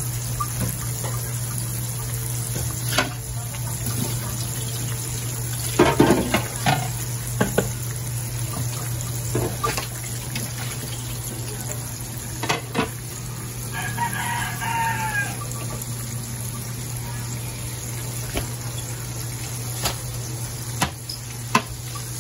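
Flour-coated sardines frying in hot oil in a pan, a steady sizzle over a low hum, with a few sharp knocks and clatters, the loudest about six seconds in. A rooster crows once, about fourteen seconds in.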